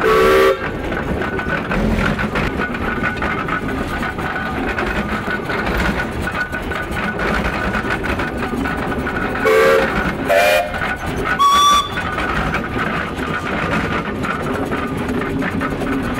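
1906 Advance steam traction engine running under way, with short blasts on its steam whistles: one at the start, then three in quick succession near the end, each higher in pitch than the last, from its low, middle and high whistles.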